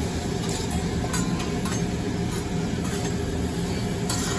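Steady low rumble of hibachi restaurant background noise, with several short, light clinks of utensils spread through it.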